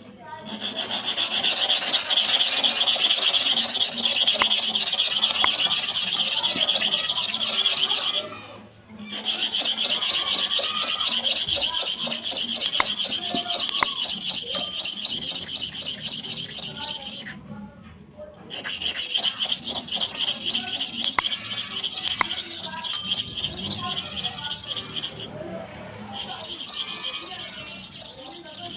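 Hair-clipper blade being rubbed on an abrasive surface during sharpening, a steady high scraping that stops briefly twice. The blade's face is being worked to a shine.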